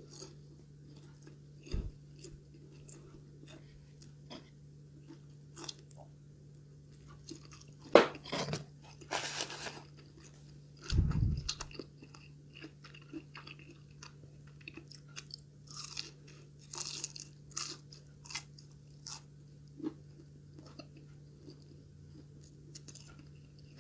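Close-miked chewing of breaded, deep-fried katsu, with irregular crunches and small clicks, a sharp click about eight seconds in and a low thump about three seconds later, over a faint steady hum.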